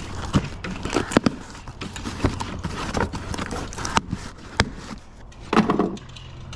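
Mailed package being opened by hand: packaging rustling and tearing, with a series of sharp clicks and knocks as it is handled.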